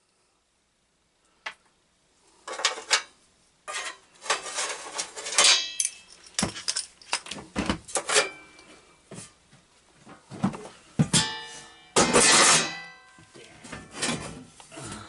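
Loose sheet-metal mower parts clanking and clattering as they are handled and set down, some knocks ringing briefly. This starts after a couple of near-silent seconds.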